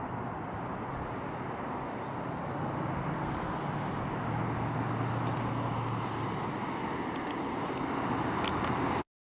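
1968 Chevrolet Camaro RS/SS's 350 cubic-inch small-block V8 running as the car drives slowly past, growing a little louder midway as it comes near. The sound cuts off suddenly near the end.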